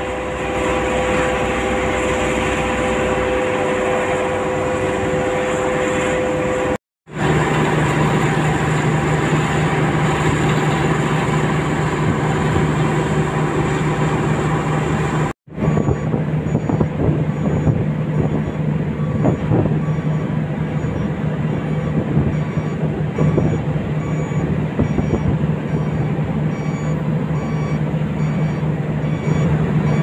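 Diesel heavy machinery running with a steady drone, the sound changing abruptly twice. In the second half a Hino self-loader truck's diesel engine runs with a steady low drone while a high beep repeats about once a second, like a reversing alarm.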